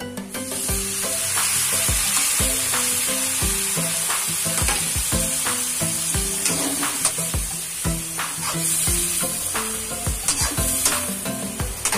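Whole raw shrimp tipped into hot melted butter in a wok, sizzling as they fry. Near the end a spatula stirs them, with clicks and scrapes against the pan.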